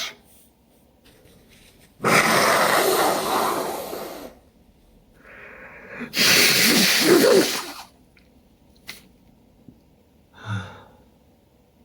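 Two big allergy sneezes from a pollen allergy, about two seconds and six seconds in. A drawn in-breath comes before the second, more voiced sneeze, and there is a short breath sound near the end.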